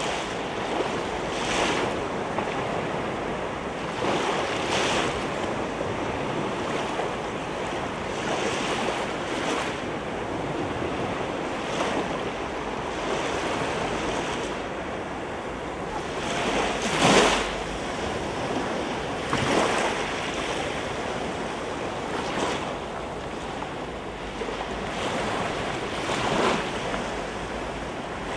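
Sea waves washing in and breaking, a steady rush with a louder surge every couple of seconds and the biggest one about seventeen seconds in, with some wind on the microphone.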